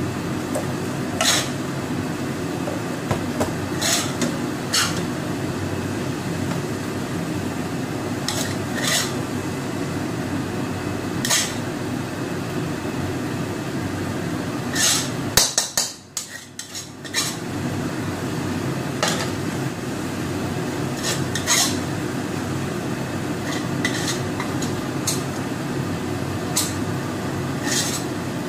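A metal spatula scraping and clinking against a wok and a pot as cooked rice is scooped from one into the other. Scattered sharp clinks over a steady low hum, with a brief drop in the sound about halfway through.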